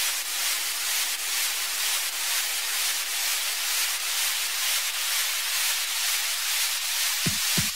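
Intro of an electronic dance track: a steady wash of hiss-like synthesized noise, strongest in the treble, then two low kick-drum thumps near the end as the beat comes in.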